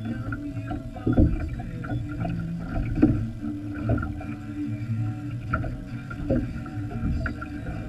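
Small fishing boat adrift on a river: water slapping against the hull in irregular knocks over a steady low rumble.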